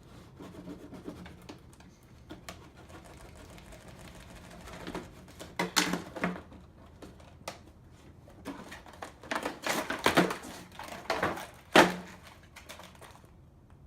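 Toy packaging being struggled open by hand: irregular clicks, crinkles and knocks, with a few sharper snaps in the second half.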